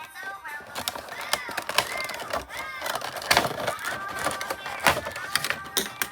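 A high-pitched voice-like sound gliding up and down, over a string of sharp clicks and taps, the loudest about three and five seconds in.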